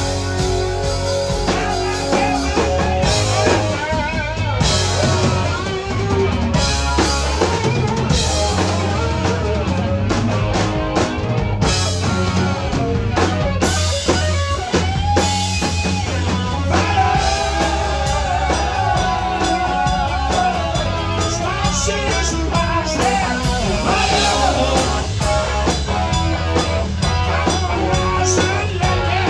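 Live rock band playing: drum kit and electric guitars over a steady bass.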